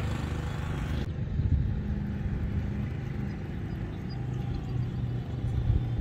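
Low, steady hum of a small engine running, its pitch lines shifting a little lower partway through.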